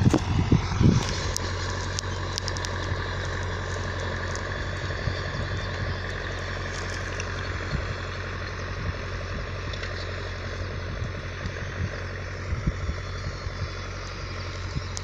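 John Deere 310A backhoe loader's engine running steadily while it pulls a disk harrow through the field. Wind buffets the microphone with low thumps in the first second and a few more near the end.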